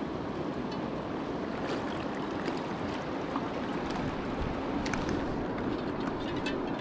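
Steady rush of a shallow, fast river running over cobbles and stones, with a few light clicks in the last couple of seconds.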